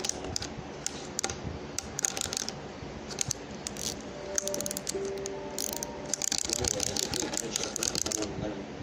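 Small plastic toys handled close to the microphone: an irregular run of clicks and rattles, with a few short steady tones about halfway through.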